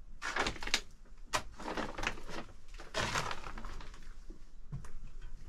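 Footsteps crunching and scuffing over a debris-strewn stone floor of dry leaves, grit and broken boards. There are several steps in the first three and a half seconds, then fainter scuffs.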